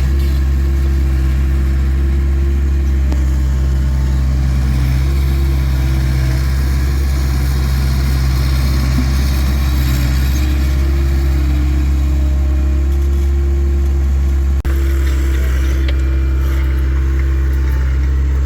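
Takeuchi TL26 skid steer's diesel engine running steadily, with a brief drop in level about fourteen and a half seconds in.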